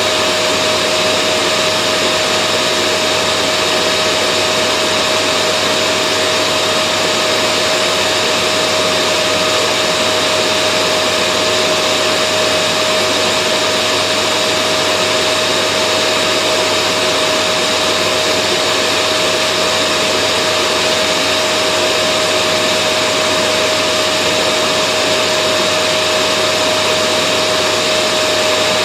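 Vacuum cleaner running steadily: an even rushing of air with a constant whine over it, no change in speed or pitch.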